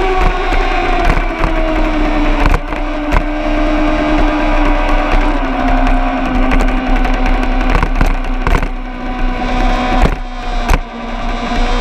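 A vehicle engine running, its pitch dropping over the first few seconds as it slows and then holding steady, over a constant deep rumble. A few sharp knocks come through along the way.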